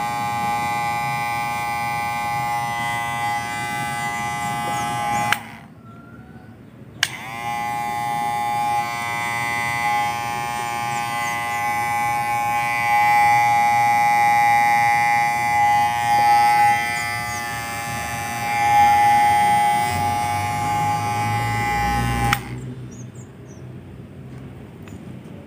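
WMARK NG-122 cordless hair clipper running with a steady motor hum. It is switched off about five seconds in, switched back on a second and a half later with a brief rise in pitch as it spins up, and runs until it is switched off again near the end.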